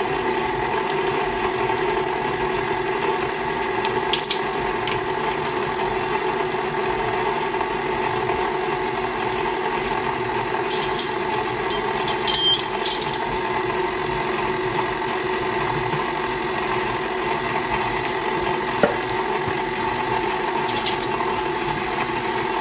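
KitchenAid Classic stand mixer running steadily, its flat beater working eggs and salt into creamed sugar and shortening in the steel bowl. A few brief clicks and a short clatter come around the middle.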